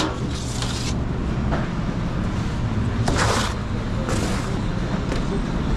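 Steady low hum of kitchen machinery in a pizzeria, with a few short scraping swishes over it, about half a second, three seconds and four seconds in.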